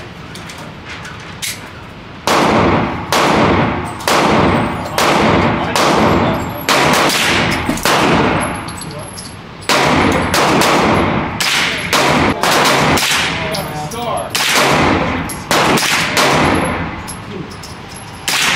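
Gunshots at a shooting range, fired one after another at a steady pace of roughly one shot every three-quarters of a second, starting about two seconds in with a short break partway through. Each shot is followed by a ringing tail.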